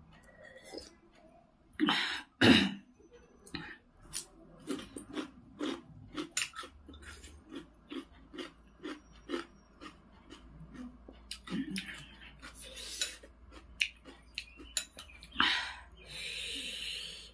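Close-miked eating: wet chewing and mouth clicks, about three a second, with a metal spoon tapping and scraping a ceramic bowl of kaudi noodle soup. There are two louder knocks about two seconds in and a breathy noise near the end.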